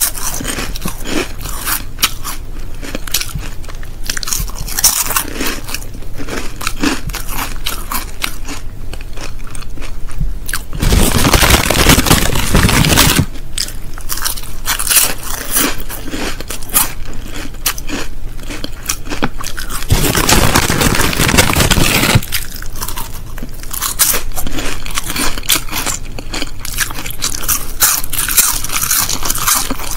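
Crisps being bitten and chewed close to the microphone: many sharp, crackly crunches, with two longer, louder bouts of dense crackling about eleven and twenty seconds in.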